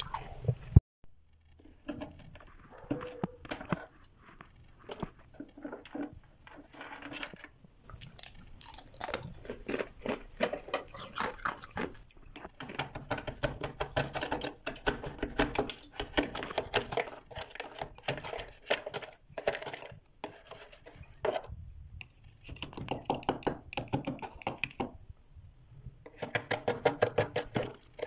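Thick freezer frost crunching and crackling as it is scraped and chipped off the freezer walls with a hand tool. The crackles come in quick, irregular runs with a few short pauses.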